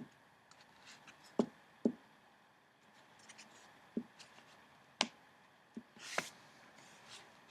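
About half a dozen light, separate taps and knocks on paper or a hard surface, spread unevenly. A short rustle of paper comes just after the middle.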